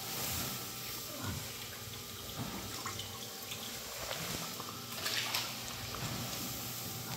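Water splashing and dripping as a live fish is lifted out of a water-filled live-well bag and moved into an aquarium. The loudest splash comes about 5 seconds in.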